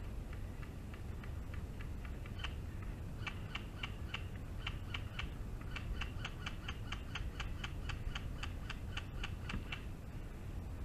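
Irregular sharp clicks of airsoft gunfire, a few per second: sparse at first, then coming thicker from a few seconds in, over a steady low rumble.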